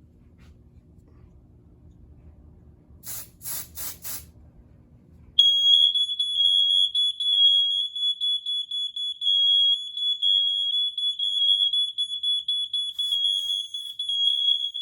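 Four short hisses of aerosol smoke-test spray about three seconds in. About two seconds later a piezo smoke alarm goes off with a shrill, high steady tone and keeps sounding loudly, its level wavering: the alarm has detected the test smoke.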